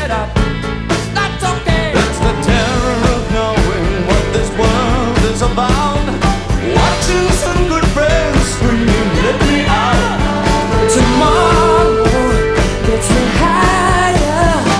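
Background rock music with singing over a steady drum beat.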